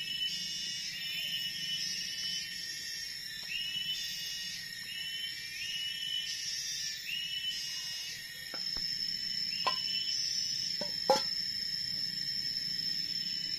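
Tropical forest ambience: insects drone at several steady high pitches, and a short rising call repeats about once a second. In the second half come a few sharp clicks, the loudest a little after eleven seconds.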